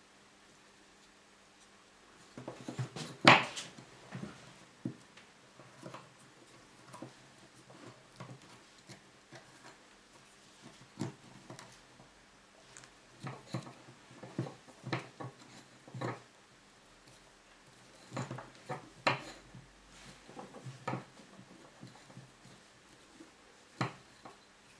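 Small irregular knocks and clicks of wooden sticks handled on a wooden tabletop while yarn is wound and tied around them. They start about two seconds in, and the sharpest knock comes about a second later.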